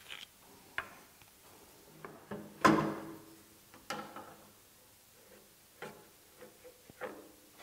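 Handling knocks and clicks as a plywood sled is lifted and shifted on a bandsaw's table. The knocks come singly and irregularly; the loudest is a short thump about two and a half seconds in.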